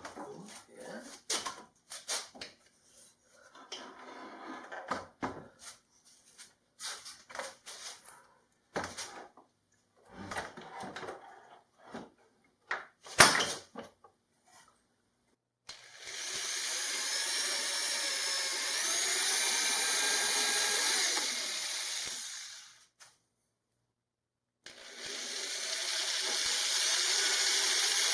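A handheld power tool running steadily with a wavering whine for about seven seconds, stopping, then starting again near the end. Before it come a series of knocks and clicks of tools and wood being handled.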